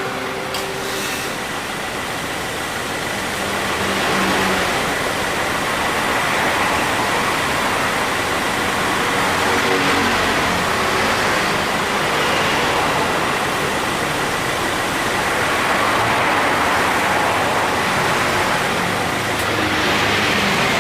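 2018 Subaru Forester's flat-four engine running with the air conditioning on: a steady rush of engine and fan noise with a faint, thin high whine. A few short clicks come about a second in. The A/C compressor is lightly worn and makes an abnormal noise as it engages, with cooling falling off.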